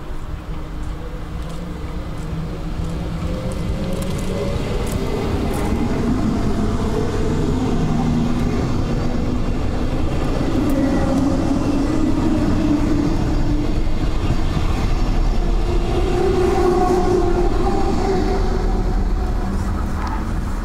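Berlin S-Bahn class 485 electric train pulling away and passing close by. Its motor whine rises slowly in pitch as it gathers speed over the rumble of the wheels, growing louder and peaking as the cars go past.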